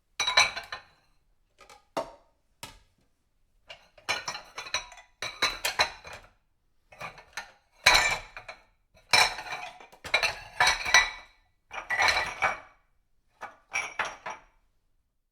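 Dishes being washed and stacked: plates, cups and cutlery knocking and clinking together in short clattering bouts with pauses between them.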